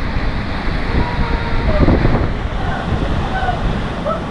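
Steady rush of a waterfall pouring into a rock pool, with wind buffeting the microphone.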